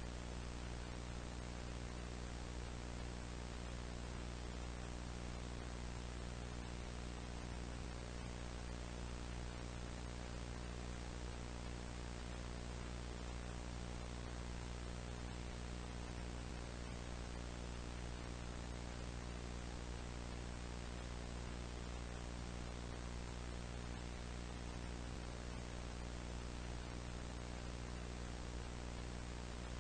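Steady electrical hum with a stack of buzzing overtones, under an even hiss of static; it does not change at all.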